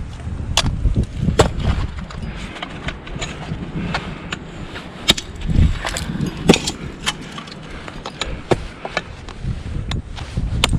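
Ice tools and crampons striking ice during a climb: sharp, irregular knocks about one every half second to a second, over low rustling.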